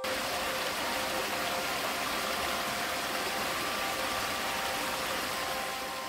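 Steady rush of flowing stream water, an even hiss that eases off near the end, with background music faint beneath it.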